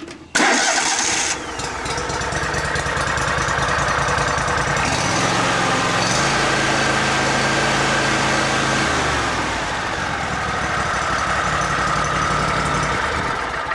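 A Kohler V-twin small engine is cranked by its electric starter, catches within about a second, and runs on. Its speed rises about five seconds in and drops back about nine seconds in.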